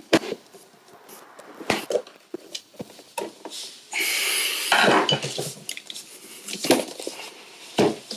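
Scattered clicks and knocks of hard plastic and metal parts being handled as a music controller's cover is fitted back on, with a noisy scrape lasting about a second some four seconds in.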